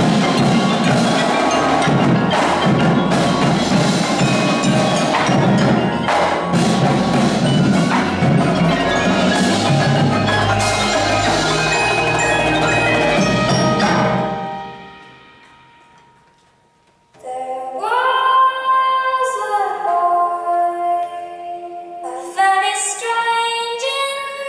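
Indoor percussion ensemble playing loudly: marching drums and cymbals together with mallet keyboards in a dense, hard-hitting passage that dies away about fourteen seconds in. After a moment of near silence, the front ensemble's marimbas and vibraphones come in with ringing, sustained chords and notes.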